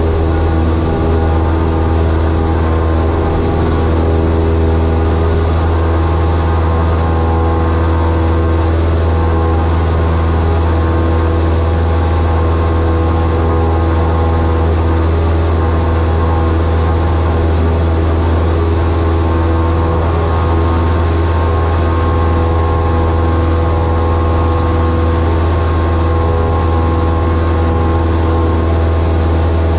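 Cessna 172's piston engine and propeller running steadily at takeoff power through the takeoff roll and climb-out, heard from inside the cockpit: a loud, even drone with a deep hum.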